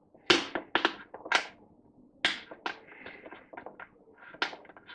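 An L-shaped Torx key clicking and tapping against a screw head and its metal washer as the screw is undone: a string of sharp, uneven taps, loudest in the first half.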